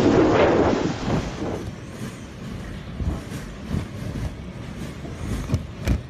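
Wind buffeting the microphone, dying away after about a second and a half into a quieter outdoor rumble, with a sharp knock near the end.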